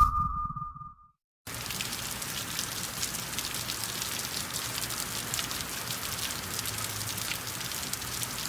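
Steady rain falling, a dense even patter with many fine drop ticks, starting about a second and a half in. Before it, the tail of a short hit with a brief ringing tone dies away.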